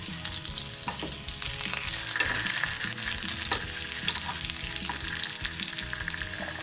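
White onion halves frying in hot oil, a steady sizzle, with a few light clicks of metal tongs as the onions are turned.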